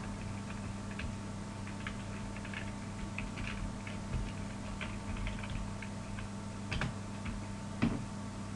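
Computer keyboard being typed on in short, irregular runs of faint key clicks, over a steady low hum. Two sharper clicks come near the end.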